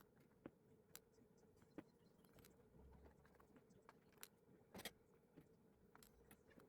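Faint, scattered small clicks and ticks from a Yale Superior dimple-pin lock cylinder being taken apart, its parts handled, with a short cluster of sharper clicks about five seconds in.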